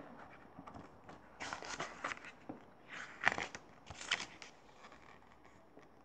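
Paper pages of a picture book being handled and turned: a few short papery rustles and flaps.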